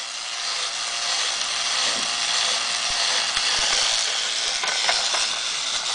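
Battery-powered Disneyland toy train running on its plastic track: a steady whirring hiss from its small motor and gears, with a few light clicks.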